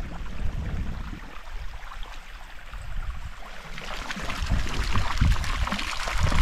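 Water rushing and splashing, as heard from a moving boat, quieter for a moment and then rising into a louder hiss in the last couple of seconds.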